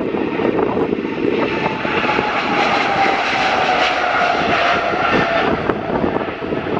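Boeing 777's twin GE90 turbofans at takeoff power as the airliner accelerates down the runway past the listener. A whine slowly falls in pitch as it goes by.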